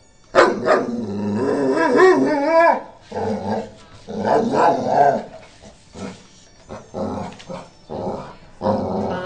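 Boxer dog vocalizing in wavering, growl-like grumbles and moans. One long call bends up and down through the first few seconds, then a series of shorter ones follows.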